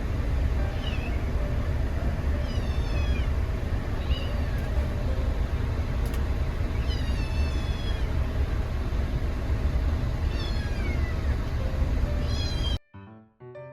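Kitten meowing about six times, high calls that fall in pitch, over a steady low rumble. The meowing cuts off abruptly near the end.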